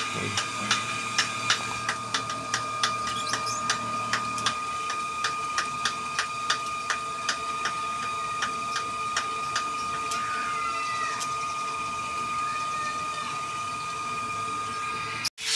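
Metal lathe parting off a metal tube: a steady whine with evenly spaced ticks about three a second, which fade out about ten seconds in. The sound cuts off abruptly near the end.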